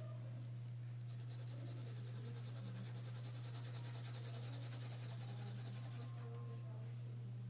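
Graphite pencil scratching rapidly across drawing paper in quick back-and-forth hatching strokes, starting about a second in and stopping about a second before the end, over a steady low hum.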